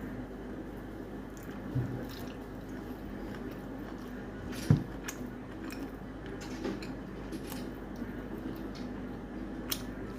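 Wet squishing and small clicks of mutton curry and rice being handled on a plate, with a sharper knock about halfway through, over a steady low hum.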